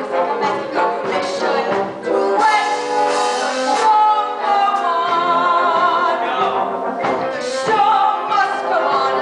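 Musical theatre number: stage performers singing with a live pit orchestra, held notes with vibrato.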